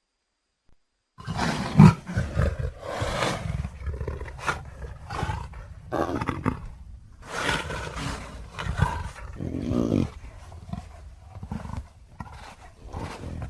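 Leopard roaring and growling in a run of rough, rasping calls, starting about a second in after a brief silence, the loudest near the start.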